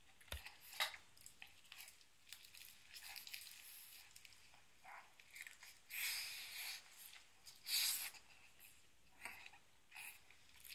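A person biting into and chewing hand-rolled sushi wrapped in nori, heard close up: small wet mouth clicks and crackles, with two louder bites about six and eight seconds in.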